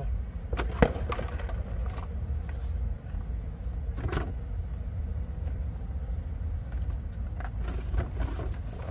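Cardboard packaging and the plastic body of an RC monster truck being handled as it is lifted from its box, with short scrapes and clicks about a second in, around four seconds, and again near the end. A steady low rumble runs underneath.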